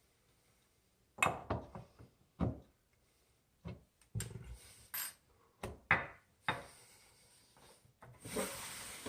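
Faucet parts and hand tools being handled, with about a dozen irregular sharp clinks and knocks of metal and plastic.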